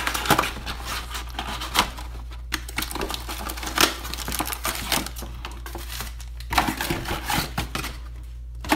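Cardboard hobby box of 2016-17 Panini Select basketball cards being opened by hand, with its foil-wrapped packs rustling as they are taken out and set down on a wooden table. The sound is a run of irregular crinkles and sharp clicks.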